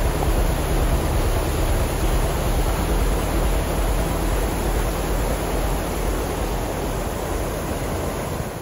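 Steady loud rush of fast-flowing water, a waterfall's whitewater close to the microphone.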